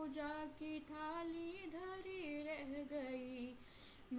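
A woman singing a Hindi devotional bhajan unaccompanied, in long held notes that glide and waver. The singing breaks off briefly near the end, then resumes.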